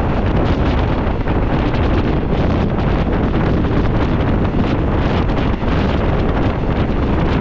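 Steady, loud rush of wind buffeting the microphone at the window of a moving passenger train, with the train's running rumble underneath and no breaks.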